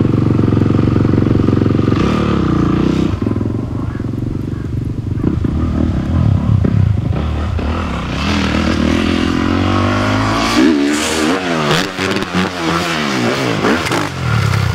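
Motocross dirt bike engine running steadily, then revving hard about eight seconds in as the bike accelerates up the jump. From about ten and a half seconds the pitch swings quickly up and down in throttle blips while the bike is in the air doing a backflip.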